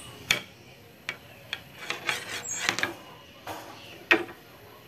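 Small metal engine parts clicking and clinking as a gear is handled and fitted onto a shaft in a motorcycle's opened crankcase: a string of sharp, separate ticks, the loudest about four seconds in.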